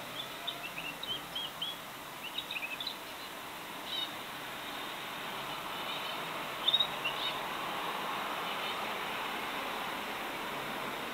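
Pet birds chirping in short, high bursts: a run of quick chirps in the first few seconds, another about four seconds in, and a louder cluster near the middle, then only a steady background hiss.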